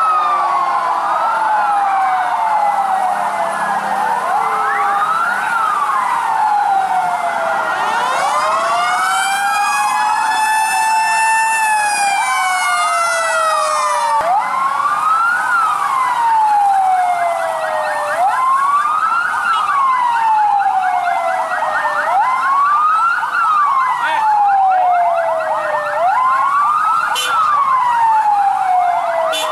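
Several emergency-vehicle sirens wailing together, each sweeping up and down in pitch about every four seconds, slightly out of step with the others. A fuller, slower wail rises and falls in the middle, and a fast warble runs along with the wails in the later part.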